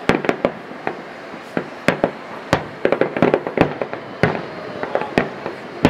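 Fireworks display: aerial shells bursting as a string of sharp bangs at irregular intervals, several coming close together about halfway through.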